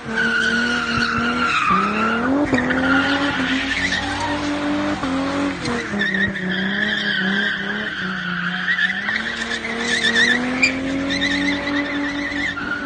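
Holden VS Commodore doing a burnout, its engine held at high revs with the rear tyres spinning and squealing continuously. The revs dip and climb again a few times. Its welded (locked) diff drives both rear wheels together.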